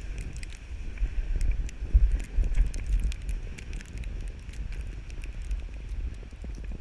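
Sled sliding fast down a snowy slope: a steady low rumble of wind buffeting the microphone, with a hiss and scattered light clicks from the sled over the snow.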